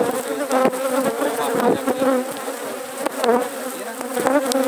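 Swarm of honeybees buzzing close around the microphone, several bees at once, their buzz rising and falling in pitch as they pass, with a few light clicks.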